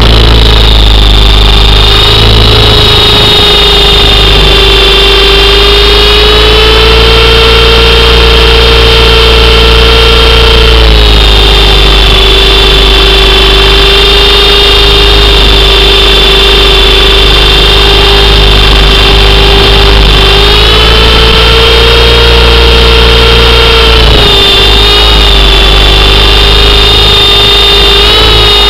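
Radio-controlled helicopter's motor and rotor heard from a camera mounted on the airframe: a loud, steady whine whose pitch rises and drops back a few times as the throttle changes.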